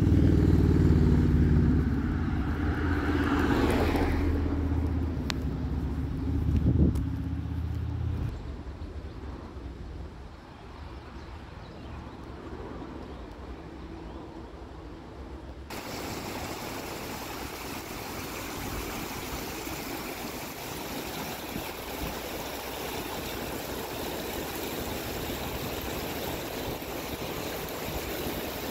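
A motor vehicle drives past, its engine fading away over the first several seconds. After a quieter stretch, the steady rush of a flowing stream starts suddenly about halfway through.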